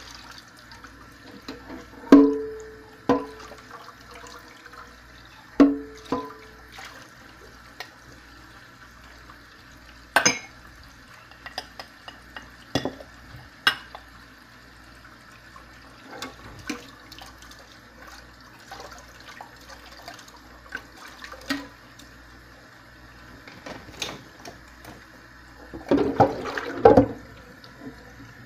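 Dishes being washed by hand in a stainless steel sink: scattered clinks and knocks of dishware, two of them ringing briefly, with water sloshing and splashing, loudest near the end.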